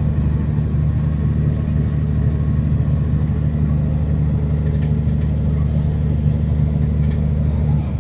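Diesel engine of an MT 15000 regional multiple-unit train running with a steady low drone.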